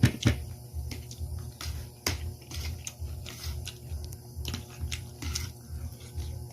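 Close-up eating sounds: steady rhythmic chewing, with sharp clicks of utensils against a plate, the loudest right at the start and about two seconds in.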